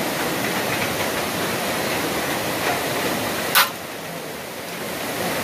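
Steady rushing of nearby running water, with a single sharp knock about three and a half seconds in, after which the rushing is a little quieter.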